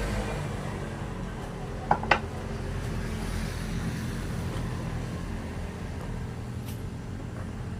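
A steady low mechanical hum, with two sharp knocks close together about two seconds in.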